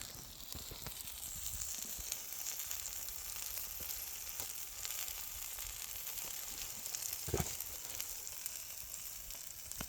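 Chicken patties frying in a cast iron pan, a steady high sizzle with scattered small pops and a louder crackle about seven seconds in.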